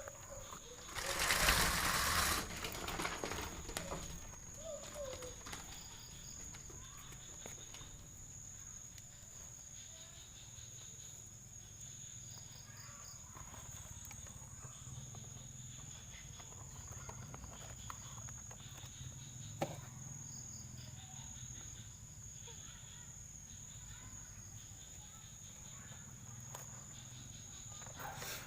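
Insects droning outdoors: a steady high-pitched whine with repeated faster chirping pulses above it. About a second in there is a loud, noisy burst lasting a second or two, and later a single sharp click.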